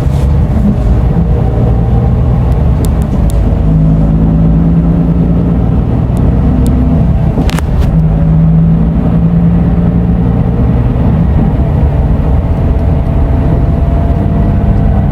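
Scania Euro 6 diesel engine of an Irizar i6S coach running under way, a loud low drone with engine tones that come and go. A few short clicks, the sharpest about seven and a half seconds in.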